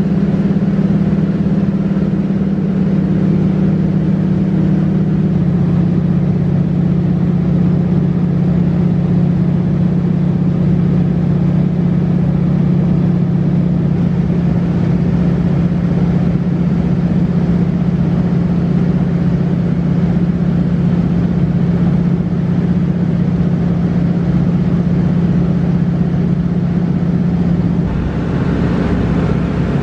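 De Havilland Beaver floatplane's engine and propeller droning steadily in flight, heard from inside the cabin. The drone steps slightly lower in pitch about five seconds in.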